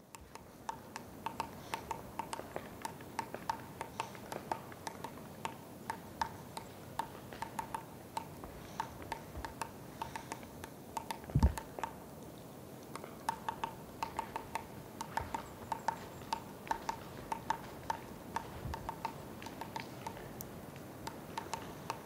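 Three-toed woodpecker pecking at a tree trunk: a run of sharp, irregular taps, two or three a second, with a short lull partway through. A single low thump about eleven seconds in is the loudest sound.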